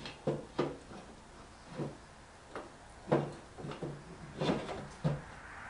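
Irregular clicks and knocks of hand tools and metal parts being handled in a car's engine bay during disassembly, about eight separate strikes spaced unevenly.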